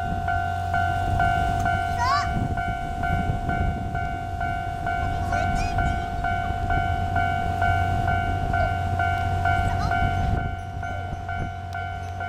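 Japanese level-crossing warning bell ringing in an even, rapidly repeating ding, over the low rumble of a train on the line.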